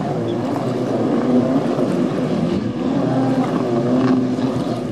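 Racing jet skis' engines revving, their pitch rising and falling as the throttle is worked.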